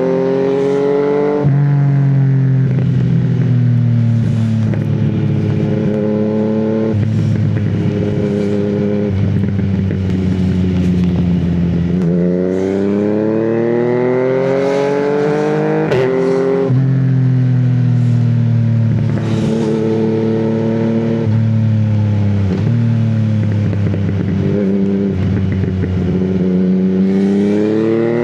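Yamaha MT-09's three-cylinder engine pulling through the gears: its pitch climbs in rising sweeps and drops abruptly at each quickshifter upshift, with one sharp crack at a shift. Between the long pulls the note steps down and holds at a steadier pitch several times.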